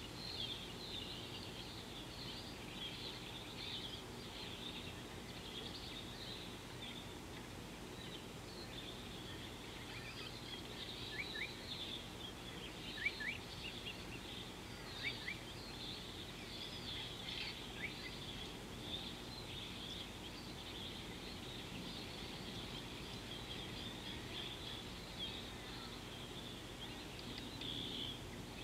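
Outdoor chorus of small birds chirping high and continuously, with a few sharper, quick paired calls about halfway through, over a low steady background hiss.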